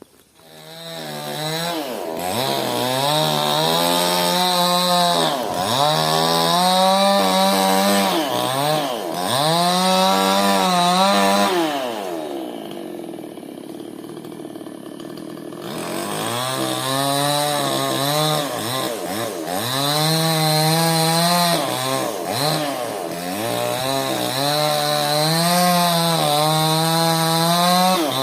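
Two-stroke chainsaw engine revving up and down over and over, in surges about every second or two. About halfway through it falls back to a low idle for a few seconds, then revs hard again.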